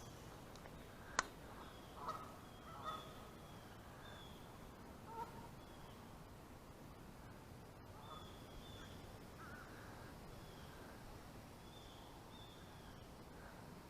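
Faint birds calling: a few short calls in the first five seconds and repeated thin, falling chirps, with a single sharp click about a second in.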